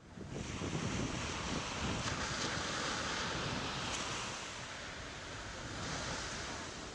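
Ocean surf washing up a sandy beach: a steady rush of breaking waves that swells in quickly at the start.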